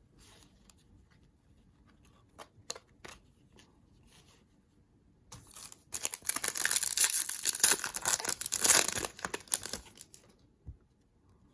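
A foil trading-card pack wrapper being torn open and crinkled, about five seconds of loud crackling, after a few faint ticks of handling.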